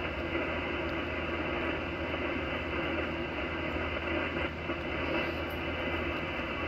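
Steady static hiss of HF band noise from a ham transceiver's speaker on the 40-metre band, heard in a gap between stations' transmissions. It has a low hum underneath, and its top end is cut off sharply by the receiver's sideband filter.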